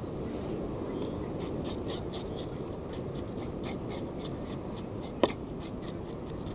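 Knife scraping and cutting at a fresh weakfish on a cleaning table: a run of quick scratchy strokes, several a second, with one sharp knock about five seconds in.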